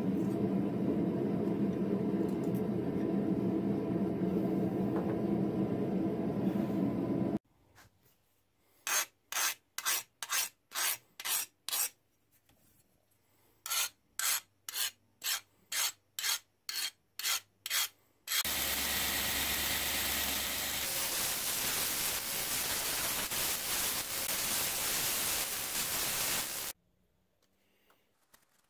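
A file drawn in short strokes across the edge of a hardened Damascus steel knife blade, about two strokes a second in two runs, the file test of the blade's hardness after the quench. Then a sandpaper-wrapped wooden block rubbed steadily along the blade clamped in a vise, which stops abruptly. A steady noise comes first, before the filing.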